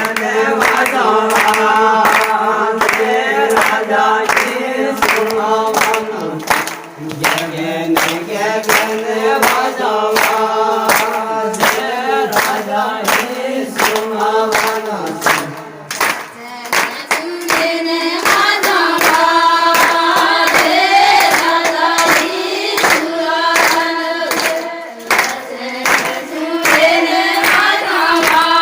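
A group of voices singing a devotional song together, with steady rhythmic hand clapping about twice a second.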